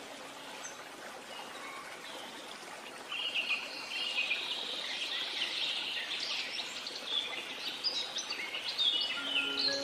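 Birds chirping over a steady hiss, the chirps busier from about three seconds in. Music notes come back near the end.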